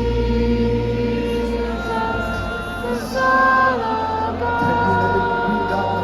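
Slow worship music with singing: long held notes that move to a new pitch every second or two over a steady deep bass.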